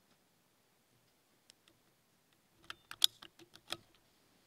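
BSA air rifle being cocked and reloaded: a quick run of sharp mechanical clicks over about a second, starting a few seconds in, the loudest in the middle.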